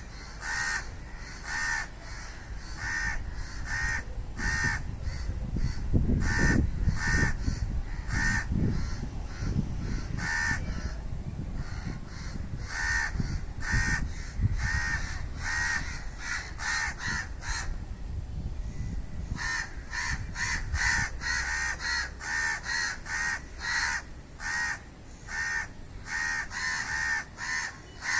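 Indian crows cawing again and again, short harsh caws about one or two a second, thinning out a little past the middle and then coming faster and more crowded in the last third. A low rumble sits underneath through much of the first half.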